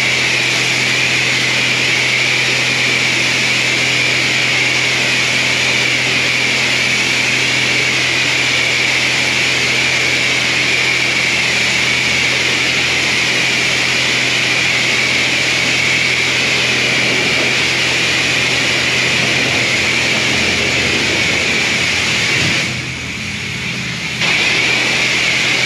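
Loud, steady machine noise: a continuous hiss with a high whine and a low hum underneath. It drops back for about a second and a half near the end, then comes back at full strength.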